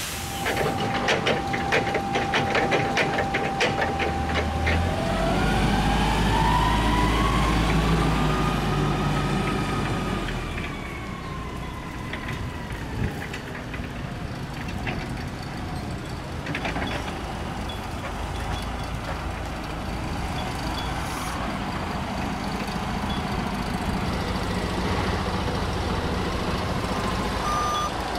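Rattling and clanking from the empty steel flatbed trailer for the first few seconds. Then a vehicle engine's note rises and falls over several seconds with a low rumble. Later the Hyster propane forklift's engine runs steadily.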